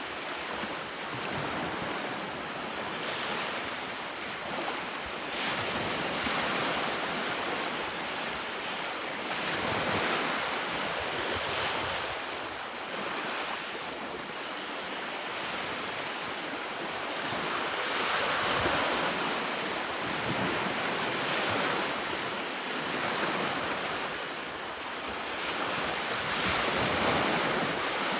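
Sea waves breaking and washing on a shore, a continuous surf hiss that swells and ebbs every few seconds.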